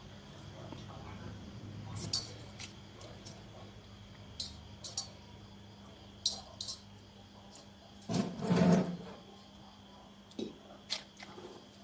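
Faint clicks, taps and small drips as fingers squeeze boiled cherry tomatoes over a steel basin of water, with a louder muffled clatter about eight seconds in.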